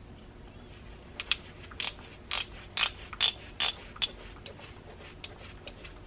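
Small metal hand tools working on a chainsaw carburetor during disassembly. About eight short metallic clicks and scrapes come roughly two a second from about a second in to four seconds in, then fainter scattered ticks.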